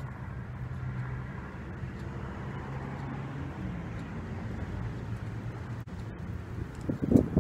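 Steady low hum of a vehicle engine or road traffic over outdoor background noise, its pitch shifting about halfway through; near the end a few short gusts of wind buffet the microphone.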